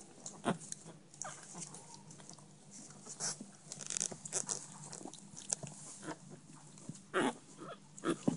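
Chihuahua puppies giving short squeaks and yelps while they wrestle, with the scuffle and rustle of their bedding; the loudest yelps come near the end.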